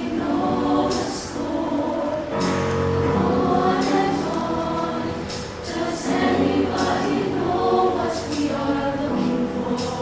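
Show choir singing held chords in harmony over a musical accompaniment, with crisp 's' consonants sung together.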